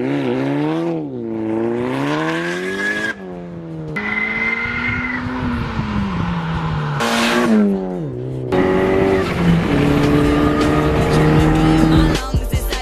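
Volkswagen Golf R (Mk6) turbocharged four-cylinder running through an ARMYTRIX valve-controlled exhaust, revving up and down several times with abrupt breaks between passes. In the last few seconds it holds a steadier note.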